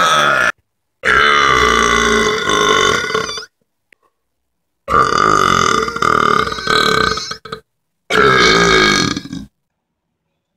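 A person belching loudly on command, long drawn-out burps with a clear pitch. One trails off about half a second in, then come two more of two to three seconds each and a shorter last one.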